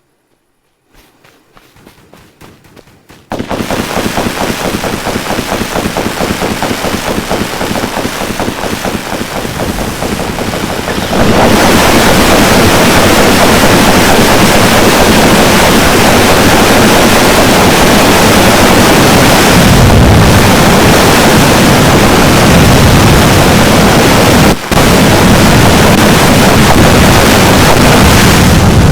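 Ground firework fountains (volcanoes) going off: a faint crackle starts about a second in, a dense, rapid crackling hiss cuts in about three seconds in, and it grows louder again around eleven seconds in as more fountains burn together, with one brief drop near the end.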